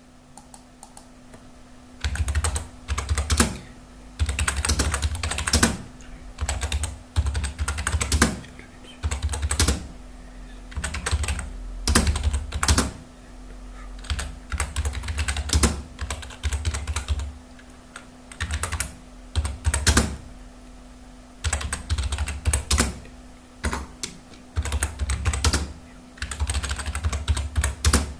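Typing on a computer keyboard at about 34 words a minute, fast runs of key clicks in bursts with short pauses between them and a few louder strikes, starting about two seconds in. A faint steady hum lies underneath.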